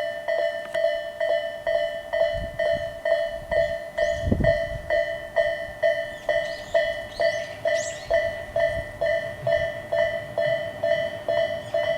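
Japanese level-crossing warning bell of the Tobu Isesaki Line type, an electronic bell tone ringing steadily about twice a second.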